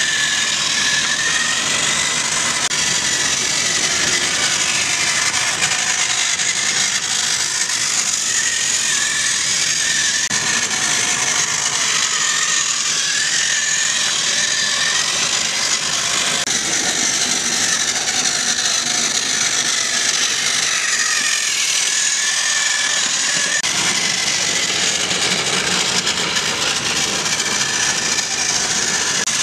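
Small battery-powered electric motor and plastic gears of a Trackmaster toy tram whirring steadily as it runs along the track, with a high whine that wavers slightly in pitch.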